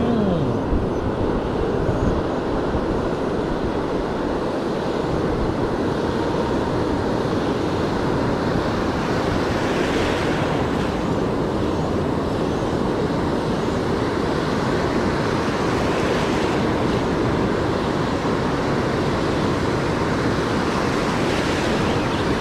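Ocean surf breaking and washing in the shallows, a steady rushing roar, with wind buffeting the microphone.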